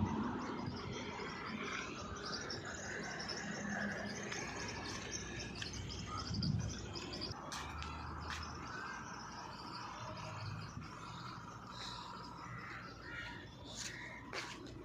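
Birds chirping, with a few sharp clicks and knocks in between.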